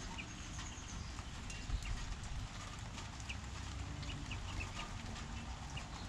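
Rain dripping as a scatter of light taps, with short high bird chirps several times and a brief higher call about half a second in, over a steady low rumble.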